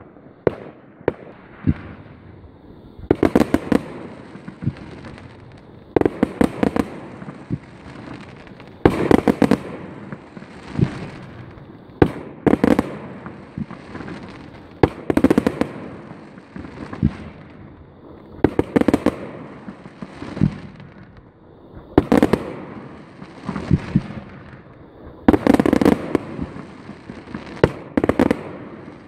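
Fireworks display: aerial shells bursting in loud bangs, a cluster of several quick reports about every three seconds.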